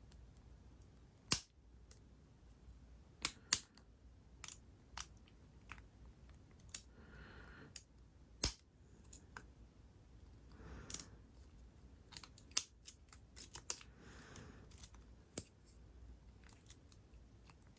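Irregular small metallic clicks and taps of a lock pick and tension wrench working the pin stack inside a Yale padlock, a few clicks sharper and louder than the rest.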